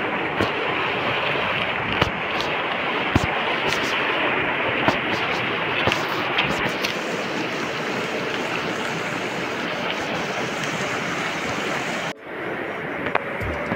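Steady rush of a fast mountain river running over rocks, with a few sharp small clicks and knocks from handling on the stony bank.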